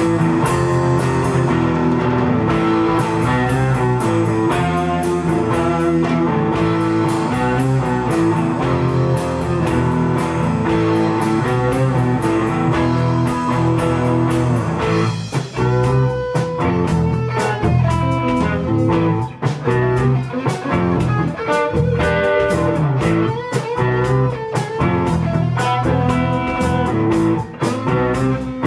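A live rock band of electric guitars, bass and drum kit playing together in a rehearsal room. About halfway through, the playing turns choppier, with short gaps between hits.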